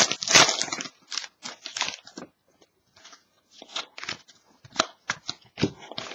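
Shiny wrapper of a Panini Certified hockey card pack crinkling loudly as it is torn open in the first second. Then a string of short, quieter rustles and clicks as the cards are handled and slid against each other.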